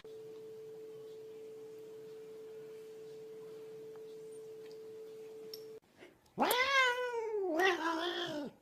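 A faint steady tone at one pitch for nearly six seconds, then a cat's loud, drawn-out meow that rises and falls in pitch and trails into a second, lower yowl before cutting off.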